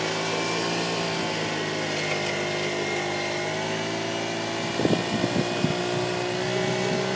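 Radio-controlled scale-model Caterpillar wheel loader running, its motors giving a steady whine of several tones as it pushes gravel, with a few short knocks about five seconds in.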